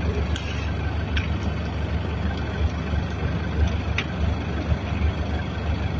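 Steady low rumble of road vehicles, with a few faint clicks over it.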